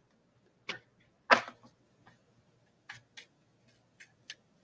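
Tarot cards being shuffled and handled: a scattering of about six sharp snaps and clicks, the loudest about a second in.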